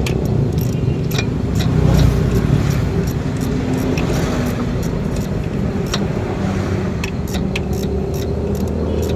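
A car engine running steadily at idle, with scattered light metallic clicks and taps over it.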